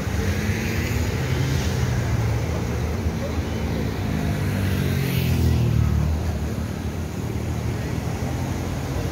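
Steady low rumble of a river in flood rushing past, mixed with road traffic.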